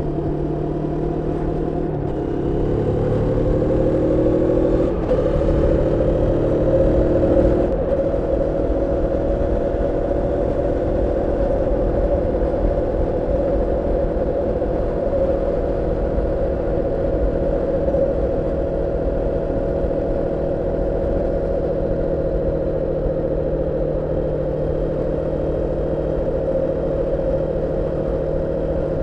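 Moto Morini X-Cape 649's parallel-twin engine on the move while being run in. It accelerates, the engine note rising with two brief breaks in the first few seconds, then holds a steady cruise.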